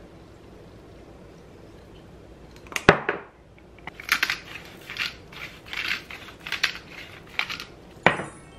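Black pepper being ground over a dish: a run of short crunching grinds, two or three a second, lasting about three and a half seconds. A sharp knock comes before the grinding and another just after it.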